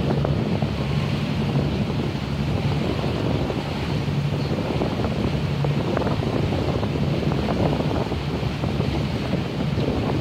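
Boat engine running with a steady low hum, under wind noise on the microphone and water washing along the hull.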